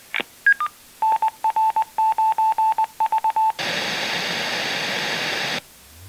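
Heathkit HS-24 communications speaker playing a test track: two short beeps, then a Morse code ID as a keyed single tone, then about two seconds of pink noise hiss that cuts off suddenly. A low rising test sweep is just starting at the very end.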